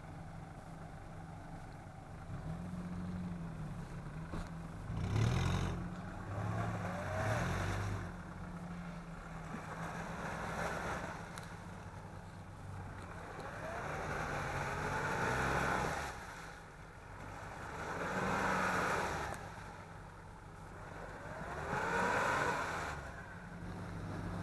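Off-road 4x4's engine revving in about six repeated surges, a few seconds apart, with wheels spinning and churning in swamp mud.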